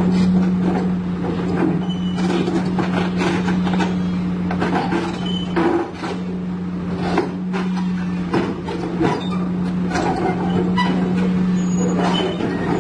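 Komatsu PC200-8 excavator's six-cylinder diesel engine running steadily under load while the machine crawls across a steel trailer deck, its steel tracks clanking and knocking irregularly against the deck.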